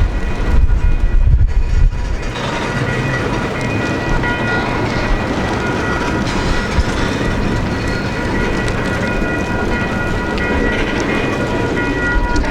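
Diesel-hauled freight train running past: heavy low rumble for the first two seconds, then a steady rushing noise with a few thin high steady tones over it.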